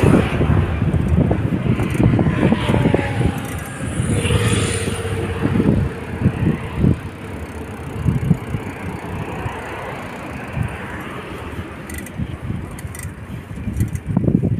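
Wind buffeting a handheld phone microphone while riding a bicycle along a paved cycle path, with knocks and rattles from the bike over the surface. Road traffic passes alongside, most plainly about four seconds in.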